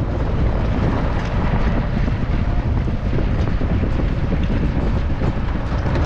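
Open-top safari jeep driving along a rough dirt track: steady engine and tyre rumble mixed with wind buffeting the microphone, and faint knocks from the bumpy ride.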